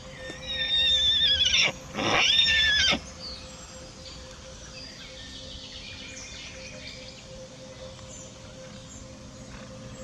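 A pony whinnying loudly, a long quavering call followed straight away by a shorter second one, both within the first three seconds.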